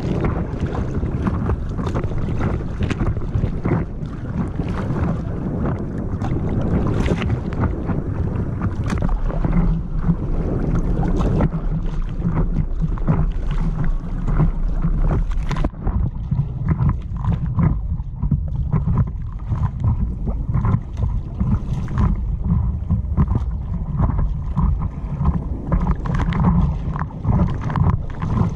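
Wind buffeting a camera microphone mounted on an inflatable moving across a lake, with water slapping and splashing irregularly against the inflatable's hull over a steady low rumble.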